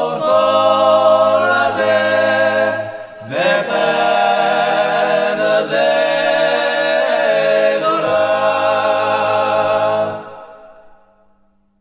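Men's voices singing traditional Pyrenean (Béarnais–Bigourdan) polyphony a cappella in close harmony, with a short breath break about three seconds in. The last chord is held and stops about ten seconds in, ending the song, and fades away over the next second or so.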